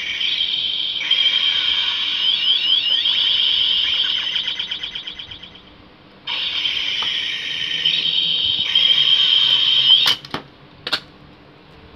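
Kamen Rider V3 DX transformation belt toy playing its electronic sound effect through its small speaker: a loud, high, wavering tone that fades out about five seconds in, starts again about a second later and cuts off suddenly near ten seconds, followed by a few clicks. The belt is sounding again after its power switch was replaced with an ordinary push-and-release switch.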